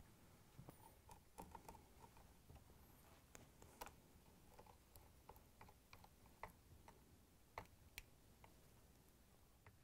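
Faint, irregular clicks and taps of a Phillips screwdriver driving screws into the gear housing of a KitchenAid stand mixer.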